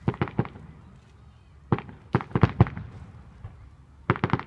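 Fireworks going off: three rapid volleys of sharp bangs and crackling reports, one right at the start, one around the middle and one just before the end.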